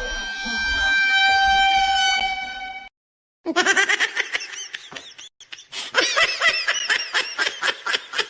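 Two comedy sound effects in a row: a steady horn-like blare of several tones lasting about three seconds, then after a short silence a fast run of short squeaky chirps, several a second, each bending up and down in pitch.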